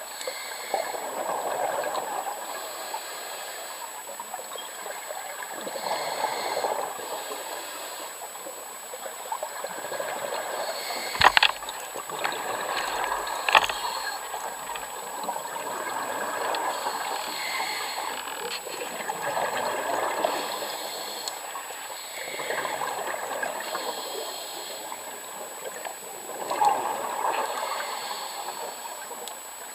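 Scuba diver breathing through a regulator underwater: bubbling exhalations that swell and fade every four to five seconds. Two sharp knocks sound a little before halfway.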